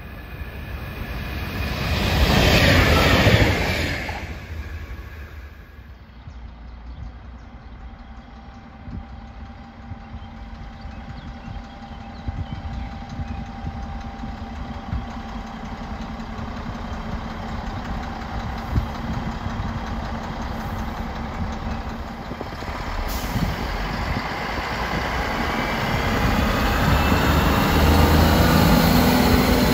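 Bodensee-Oberschwaben-Bahn class 650 Regio-Shuttle diesel railcars approach and run past, their diesel engines and wheels on the rails growing steadily louder to a loud rumble near the end. A brief loud rush of noise swells and fades a couple of seconds in.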